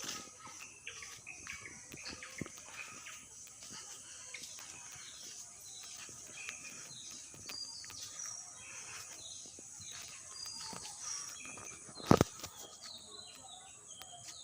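Birds chirping and calling over a steady high insect hum, with one sharp knock near the end.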